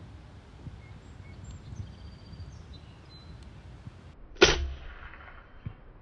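A single shot from a PCP air rifle: one sharp crack about four and a half seconds in, with a short ring-out after it.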